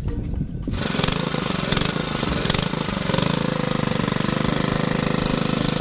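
Fishing boat's engine running steadily with a fast, even chugging, cutting in abruptly under a second in.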